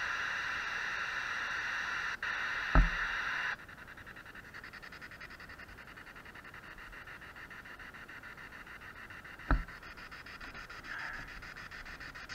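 Small radio swept across stations as a ghost box, giving static: a loud hiss that cuts off sharply about three and a half seconds in, then fainter static with fast, even ticking. Two dull thumps stand out, near three seconds and near nine and a half seconds.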